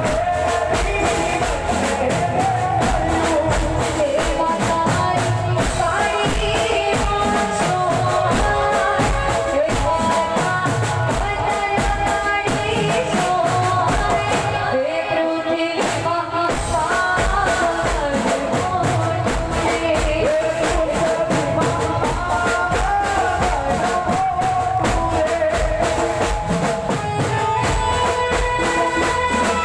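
Live Gujarati folk music played over a sound system, with a steady drum and tambourine beat under a melody line and singing at times. The beat briefly thins out about halfway through.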